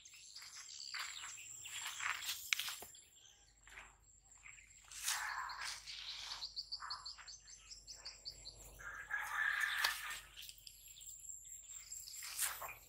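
Faint bird chirping, including a quick run of about ten high chirps a little past halfway, with soft scuffing noises.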